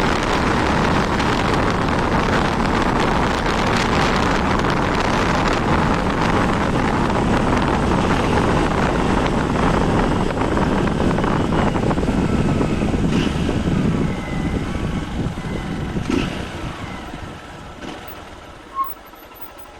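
Honda 160 motorcycle on the move, its engine mixed with a steady rush of riding and wind noise that fades away over the last few seconds. A short beep sounds near the end.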